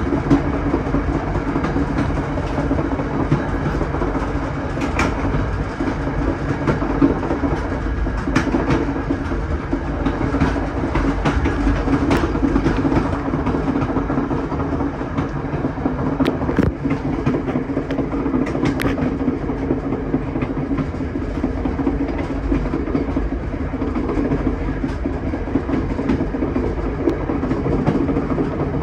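Steel wheels of a Budd stainless-steel passenger sleeping car rolling over jointed rail, heard from the car's rear vestibule: a steady rumble and rattle with scattered sharp clicks as the wheels cross the rail joints.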